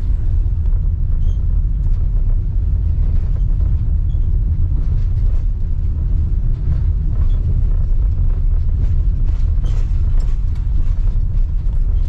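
Steady low rumble of a vehicle driving, heard from inside the cab: engine and road noise, with faint light rattles over it.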